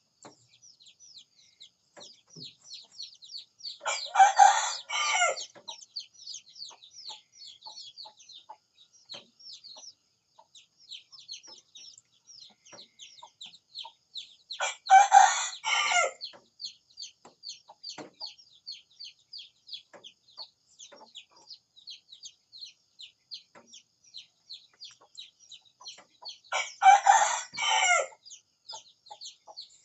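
A rooster crowing three times, about eleven seconds apart, each crow lasting about a second and a half, over steady high twittering of small birds.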